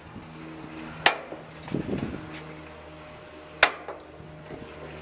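Lion gas grill's burner igniter snapping as the knobs are pushed and turned to light the burners: two sharp clicks, about a second in and again some two and a half seconds later, over a faint steady hum.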